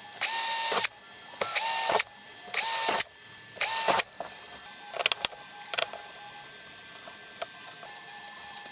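Cordless drill run in four short bursts, its motor whine rising in pitch as it spins up each time, followed by a few light clicks and knocks of handling parts.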